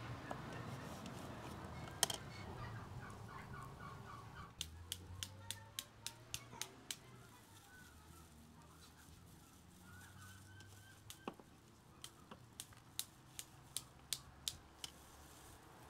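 A turkey gobbling in the background, a short warbling call, with two runs of sharp clicks at about three a second.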